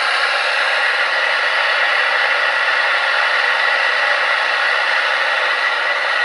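MSR Dragonfly liquid-fuel stove burning white gas at full blast with both valves wide open: a loud, steady rushing roar of the burner, even throughout, strongest in the upper-middle range.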